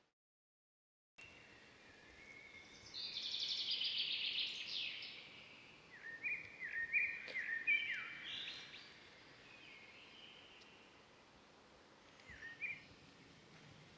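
Silent for about the first second, then wild birds calling over a steady outdoor hiss: a dense, rapid chattering trill, then a run of short falling chirps, and a couple more chirps near the end.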